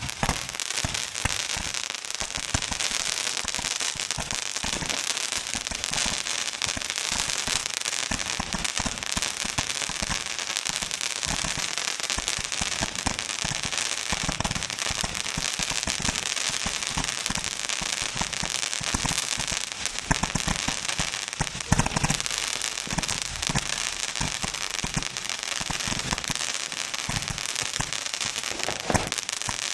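Consumer firework going off without a break: dense, rapid crackling pops over a steady hiss, with a louder bang about 22 seconds in.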